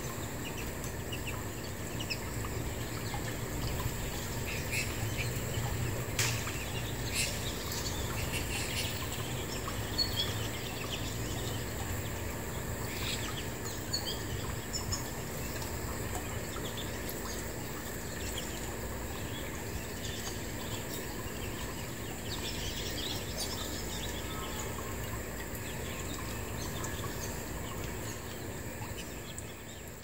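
Outdoor ambience: a steady background hiss and hum with faint, scattered chirps of small songbirds and a few sharp ticks, fading out near the end.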